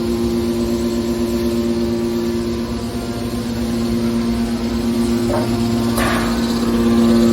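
Hydraulic car baler's power unit running with a steady hum. Two brief louder noises break in about five and six seconds in.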